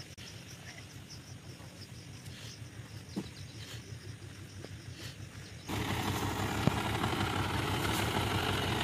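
Faint outdoor background with a few bird chirps, then, suddenly about two-thirds through, a green John Deere tractor's diesel engine running steadily and much louder.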